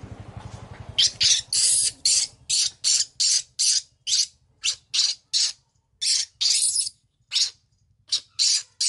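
A baby macaque squealing: a rapid run of short, high-pitched cries, about two or three a second, starting about a second in.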